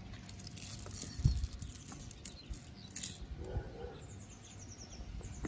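Jewelry being handled: light clicks and rustles as glass beads and a watch are moved, with a louder low bump about a second in. A small bird chirps faintly in quick repeated notes near the end.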